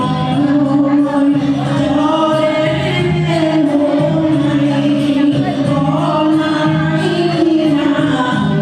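Singing, with several voices holding a melody over musical accompaniment, at a steady loud level.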